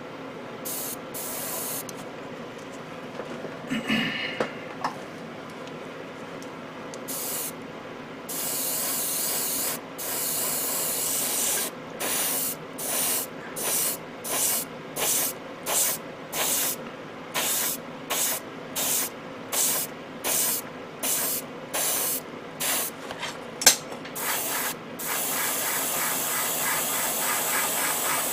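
Airbrush hissing as it sprays, at first in one steady pass, then in a long run of short bursts at about one a second, then steadily again near the end. A small knock comes about 4 s in and a sharp click shortly before the end.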